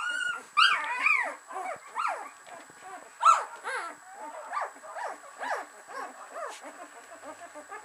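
Litter of thirteen-day-old Samoyed puppies whimpering and squeaking: many short high calls that rise and fall in pitch, overlapping. They are thickest and loudest in the first second and again about three seconds in, then grow sparser and fainter toward the end.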